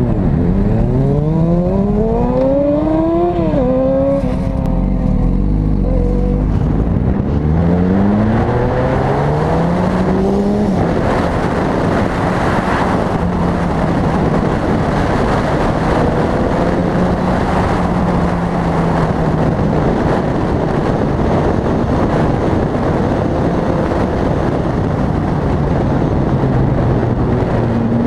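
Racing motorcycle engine heard from an onboard camera, accelerating hard from a standing start: the revs climb and drop back at gear changes, about three and a half seconds in and again about ten and a half seconds in. After that the engine runs at a steadier pitch under loud wind rushing over the microphone at speed.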